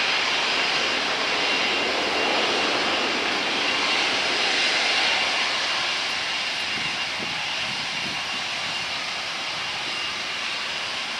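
Airbus A320-232's IAE V2527 jet engines running at taxi power: a steady jet hiss with a faint high whine, easing off slightly about halfway through.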